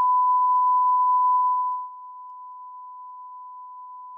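A steady, single-pitch test tone, the reference tone that goes with television color bars. It drops to a much lower level about two seconds in and holds there.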